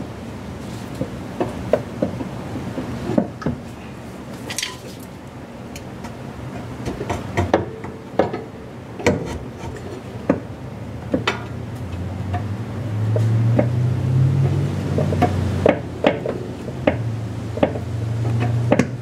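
Irregular metallic clinks, knocks and scrapes of hand tools and metal parts in a car's engine bay as an old alternator is worked loose. A low steady hum joins in about twelve seconds in.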